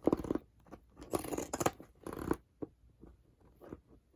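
Scissors cutting through material in three short bursts of snipping, with a few fainter clicks afterwards.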